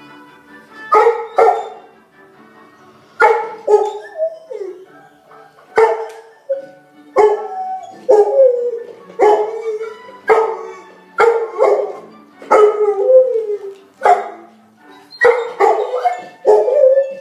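A dog 'singing' along to music from a television: about a second in it begins a string of short howling barks, roughly one or two a second, some sliding down in pitch, over the orchestral music playing underneath.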